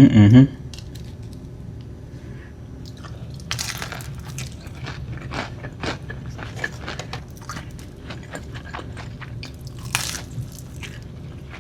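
A person biting into and chewing crisp fried food close to the microphone: a run of small crunches and mouth clicks, with a couple of louder crunches about three and a half seconds in and again near ten seconds.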